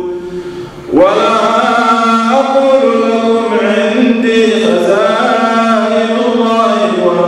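A man's solo melodic Quran recitation in drawn-out tajweed style, amplified through a headset microphone, with long held notes. A phrase ends at the start, there is a short breath pause, and a new phrase rises in about a second in.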